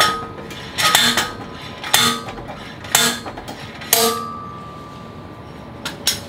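Five ringing metal-on-metal strikes, about one a second, as tools hammer at the end of a steel axle housing tube, then a few small clicks near the end.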